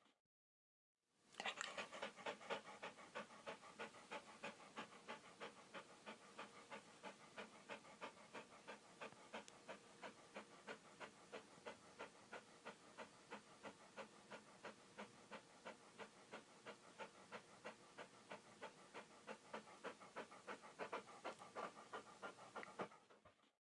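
A dog panting rapidly and steadily, about three to four quick breaths a second. It starts after a second of silence and fades out near the end.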